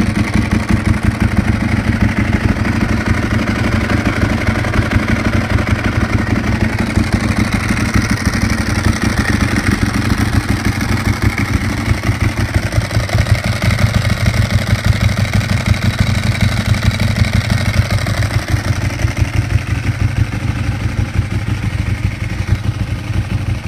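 Ducati 1098S's L-twin engine running at a steady idle, a rapid, even train of firing pulses with no revving.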